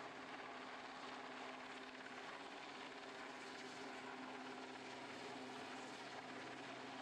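Westland Sea King helicopter hovering, its rotor and twin turboshaft engines running in a steady drone.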